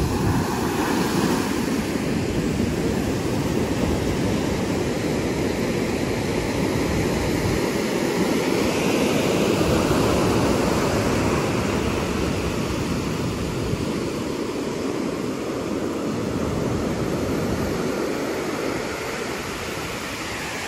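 Ocean surf breaking and washing up a sandy beach: a steady rush of waves that swells to its loudest about halfway through, then eases off.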